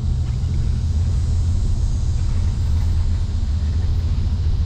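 Pickup truck's drivetrain running at low speed, heard inside the cab as a steady low drone with a grinding noise, which the driver suspects is low transmission fluid or low oil in the rear differential.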